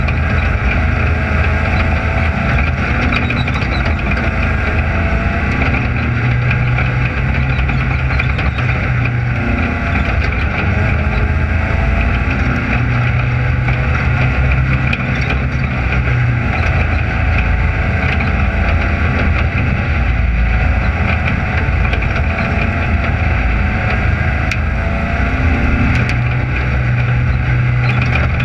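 Onboard sound of a dirt-track race car's engine running at low revs, its pitch rising and falling a little with light throttle.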